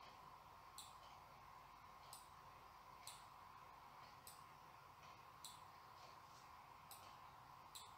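Faint computer mouse clicks, about seven spaced a second or so apart, over quiet background hiss with a faint steady hum.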